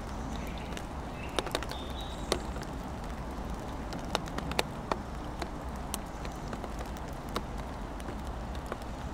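Rain on a wooden playground tunnel: scattered drops knock sharply and irregularly on the boards over a steady hiss of rain, with a low steady rumble underneath.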